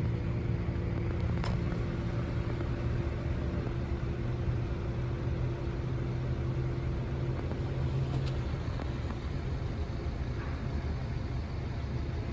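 Steady low engine rumble with a droning hum that shifts and eases about two-thirds of the way through.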